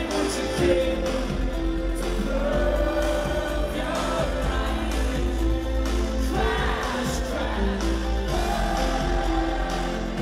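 Live rock band playing loudly with a singing voice over it, recorded from within the arena crowd.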